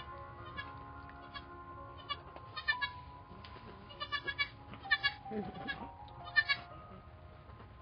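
Newborn pygmy goat kid bleating: several short, high, wavering bleats, the loudest two in the second half.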